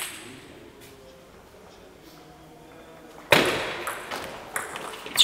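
Table tennis ball clicking off bats and the table during a doubles rally, each hit echoing in a sports hall. About three seconds in a sudden loud burst cuts in, followed by quicker clicks.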